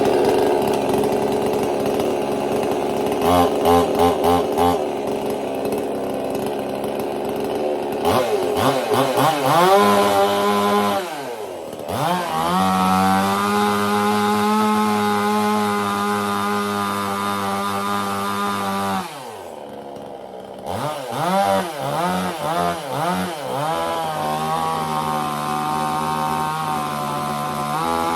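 58cc two-stroke chainsaw running on its first start: revved in short bursts, held at a steady high speed for several seconds, dropping back to a low idle about two-thirds of the way through, then blipped and run up again.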